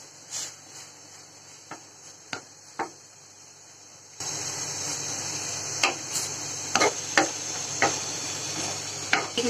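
Spoon or spatula knocking against a cooking pot while noodles are stirred, a scattering of sharp clicks. About four seconds in, a steady hiss comes up under the clicks.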